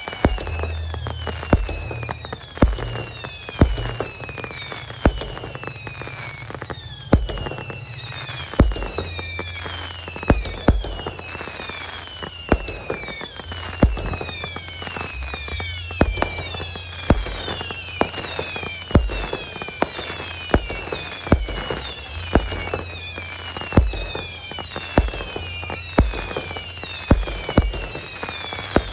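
A fireworks barrage firing in rapid succession. Sharp launch bangs come about one to two a second, over many overlapping whistles that fall in pitch.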